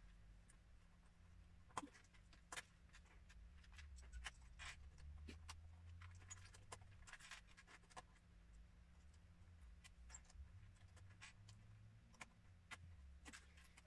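Faint, irregular clicks and taps of small plastic Lego bricks being handled and pressed together, over a low steady room hum.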